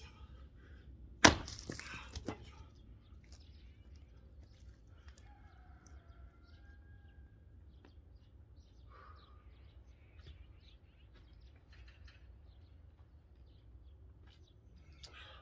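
An axe strikes a log once, about a second in, with a sharp crack as the wood splits, followed by a brief crackle and a smaller knock a second later.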